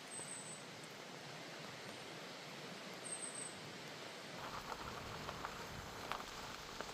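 Steady, faint hiss of running water, with light patter and a few small ticks in the second half.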